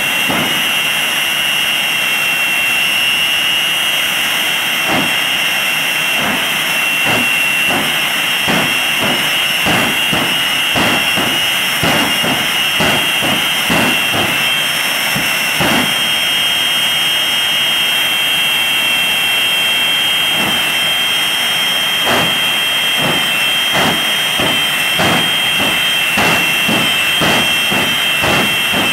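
Jet engines of two locomotive-bodied jet dragsters running at idle on the start line. They give a loud, steady high whine, broken by irregular gusty bursts of noise.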